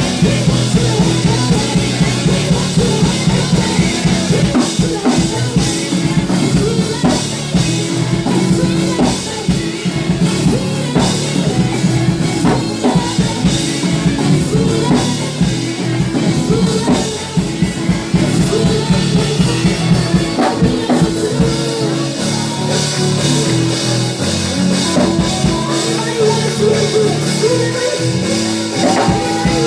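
Live praise-and-worship band music with a steady drum-kit beat under sustained pitched instruments.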